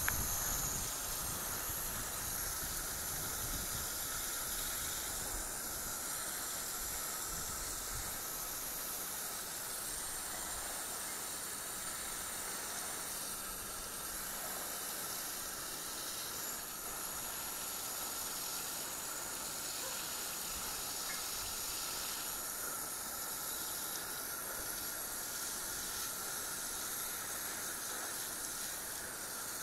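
Water running steadily onto the soil of a tall raised garden box being flood-watered, heard as an even hiss.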